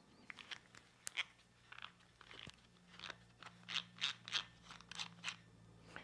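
Faint, irregular small clicks and scrapes of fingers working a metal camera clip on a backpack strap, turning its thumbscrew knob to let out more thread.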